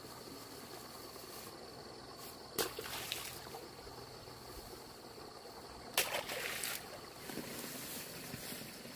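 Muddy water sloshing and splashing in a flooded rice paddy, with two sharper splashes about two and a half and six seconds in.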